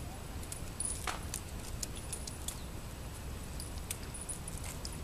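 Scattered small metallic clicks and clinks of cartridge cases as several shooters empty the cylinders of their revolvers and handle the rounds, over a steady low rumble.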